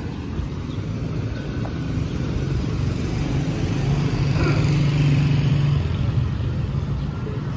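A motor vehicle passing slowly along the street: its engine hum builds to a peak about five seconds in, then eases off.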